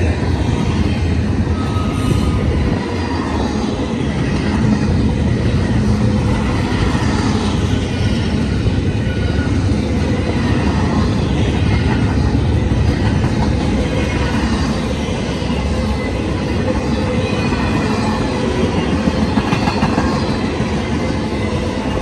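Freight train cars loaded with double-stack containers and highway trailers rolling past: a loud, steady rumble and clatter of steel wheels on the rails.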